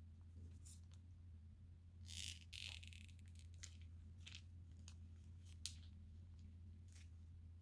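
Faint crinkling of a plastic piping bag and small clicks of slime being squeezed out of it, the plainest crinkle about two to three seconds in, over a low steady hum.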